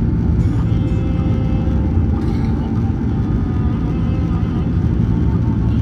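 Cabin noise inside a Boeing 767-300ER during takeoff: a steady, loud rumble of engines and airflow, with faint steady engine whine tones above it.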